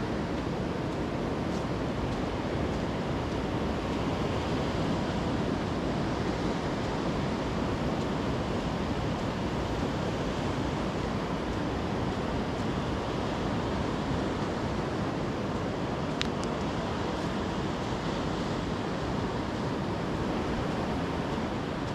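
Steady wash of sea surf, an even noise with no distinct rhythm of breaking waves, and one brief high tick past the middle.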